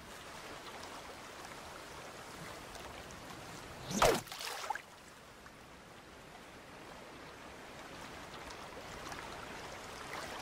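Steady wash of water lapping in shallows, with a short louder sound about four seconds in.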